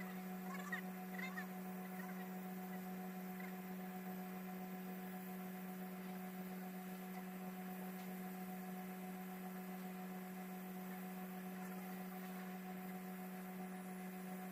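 Steady electrical hum from the TIG welding setup while a root pass is being welded on the pipe, one unchanging low tone with fainter overtones. A couple of faint short chirps sound about a second in.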